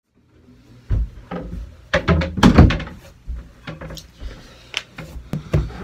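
A run of knocks and thumps from a camera being handled and set up, the loudest about two and a half seconds in.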